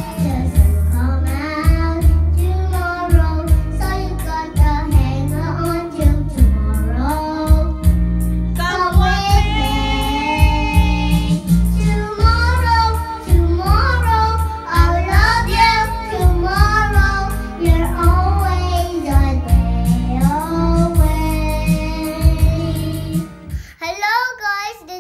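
A young girl singing along to a karaoke backing track. The backing music stops near the end, leaving her voice alone.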